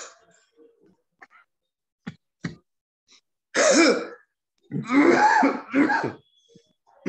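A man clearing his throat hard three times in a row, hawking up phlegm into a tissue. He is bringing up mucus loosened by a forceful lung-cleansing breathing exercise.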